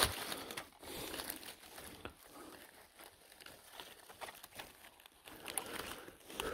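Faint, irregular rustling and crackling of dry leaf litter and twigs as chanterelles are picked by hand from the forest floor.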